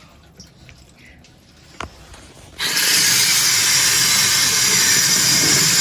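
Water turned on about two and a half seconds in, then running from a tap or shower head as a steady hiss.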